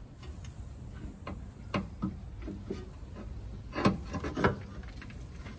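Knocks, clicks and scrapes of an old air-bag suspension strut, an air spring with integrated shock absorber, being wrestled out of the rear wheel arch by hand. The strokes are scattered and irregular, with the loudest knock a little under four seconds in and another about half a second later.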